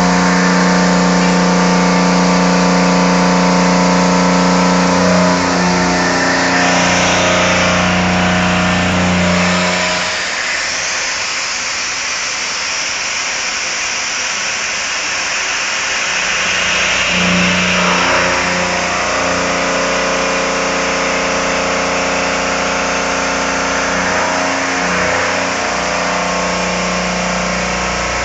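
CNC milling machine running and cutting: a steady hum with several whining tones over a hiss. For several seconds in the middle the hum and tones drop away, leaving mostly hiss, then they come back.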